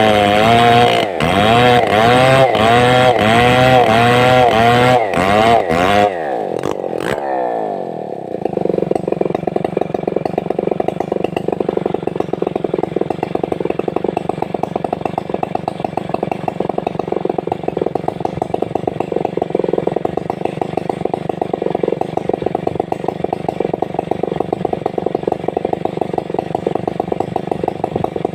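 Stihl 070 two-stroke chainsaw running at high revs, its pitch rising and falling over and over. About seven seconds in it winds down and settles into a steady idle.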